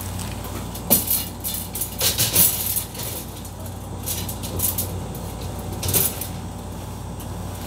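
Egg tray being slid into the rails of an Rcom Maru Max 200 cabinet incubator, with several short knocks and scrapes as it goes in and the trays are adjusted, over a steady low hum.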